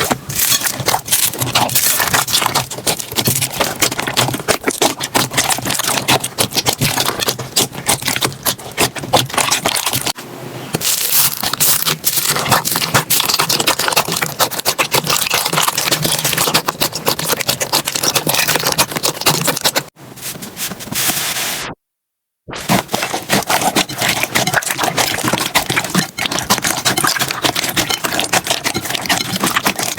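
Slime being squeezed, poked and stretched by hand, making dense, wet crackling and popping clicks. The sound cuts out briefly about two-thirds of the way through, then carries on.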